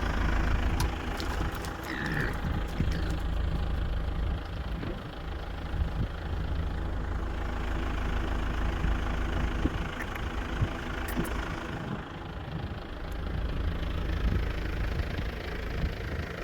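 A vehicle engine running steadily, with scattered short knocks and rattles over it.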